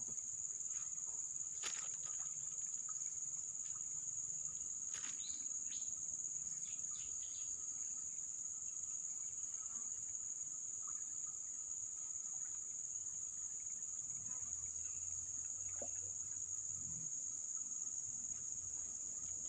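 Steady, shrill drone of a chorus of insects, one unbroken high-pitched buzz, with a few short faint clicks in the first few seconds.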